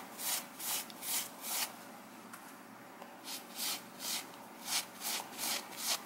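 Stiff brush scrubbing a baking soda and peroxide paste into a cotton shirt's fabric in quick back-and-forth strokes, about two or three a second. The strokes pause for about a second and a half partway through, then start again.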